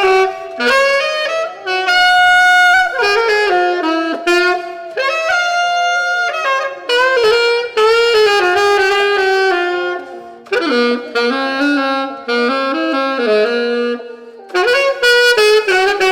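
A single saxophone playing phrases of held and moving notes, broken by several short pauses.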